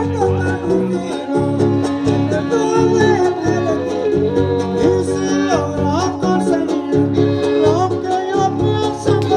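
Son huasteco (huapango) played live by a huasteco trio: a violin melody sliding over the steady strummed rhythm of a jarana and a huapanguera.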